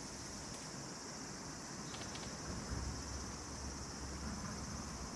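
Steady high-pitched chorus of insects trilling without a break, over faint outdoor background noise.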